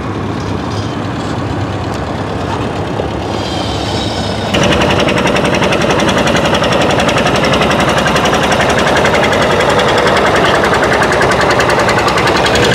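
Old farm tractor engine running. About four and a half seconds in, a much louder engine sound with rapid, even firing beats cuts in abruptly and carries on steadily.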